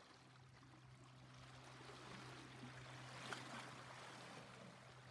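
Near silence: faint room tone, a soft steady hiss with a low electrical hum under it and one faint click about three seconds in.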